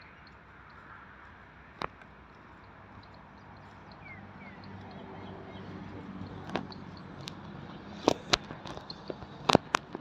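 Cattle moving about, with scattered sharp knocks of hooves, one early and a cluster in the last few seconds that is the loudest part. A low steady hum comes in about halfway through.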